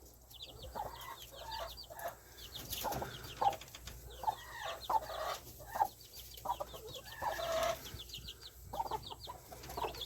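A mother hen clucking while her week-and-a-half-old chicks peep high and fast, over and over.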